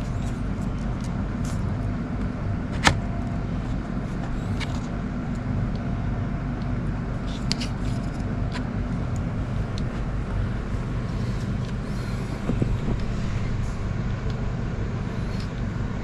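A steady low background hum, with a few light clicks and taps from hands handling a camera and its gimbal during balancing. The sharpest click comes about three seconds in.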